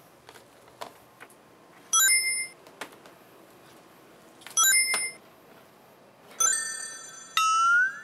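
Cartoon-style editing sound effects: four short, bright bell-like dings, one about two seconds in, one near the middle and two near the end, the last ending in a rising slide. Faint clicks between them.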